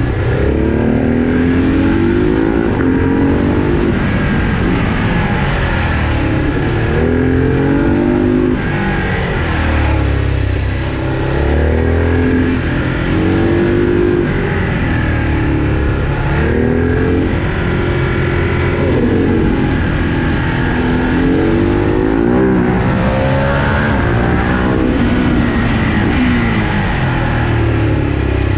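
Ducati Hypermotard 950 SP's L-twin engine, remapped and breathing through a Dekat aftermarket exhaust, heard on board while riding. The revs climb and drop over and over, about every two to three seconds, as it accelerates and backs off.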